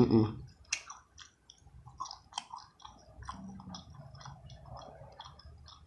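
Close-up chewing of food, with many small crisp clicks and mouth smacks.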